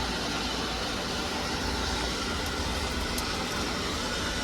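Steady hum and hiss of a store's air-conditioning or ventilation, with a couple of faint light clicks about three seconds in.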